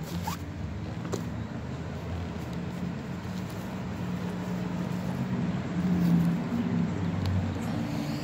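Low, steady engine noise of passing road traffic, growing louder about six seconds in, with a few light clicks.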